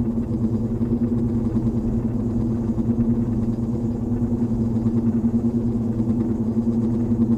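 A steady low rumbling drone made of several held tones, unbroken and unchanging.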